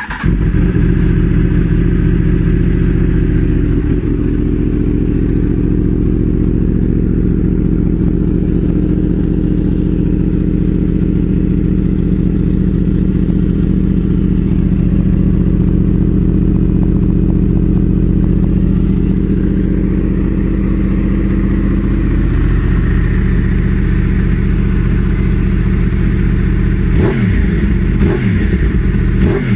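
Yamaha YZF-R1 RN32's crossplane inline-four engine, running through an Austin Racing slip-on exhaust, holding a loud, steady idle. In the last few seconds the throttle is blipped a few times, the pitch jumping up and falling back each time.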